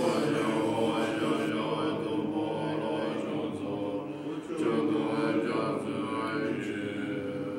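Tibetan Buddhist monks chanting in low, sustained voices.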